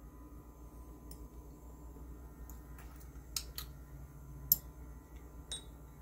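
Low steady electrical hum with a few faint, sharp clicks and taps scattered through it, the sharpest about four and a half seconds in.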